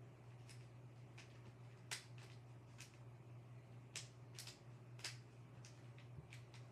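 Faint, irregular clicks of a puzzle cube's layers being turned by hand, the loudest about two, four and five seconds in, over a faint steady low hum.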